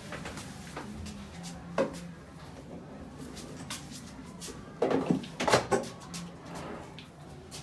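Clunks and knocks of a new fridge's doors and fittings being opened and handled: one sharp knock about two seconds in, then a cluster of louder knocks and rattles around five seconds in.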